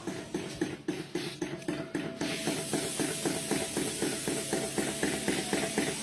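Flame-heated hot-air engine of a non-electric table fan running, with a steady rhythmic clatter of about five beats a second. A steady hiss joins about two seconds in.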